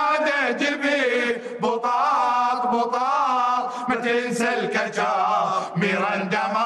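A group of men singing together without words being picked out, holding long, wavering, drawn-out notes in a plaintive Iraqi-style song.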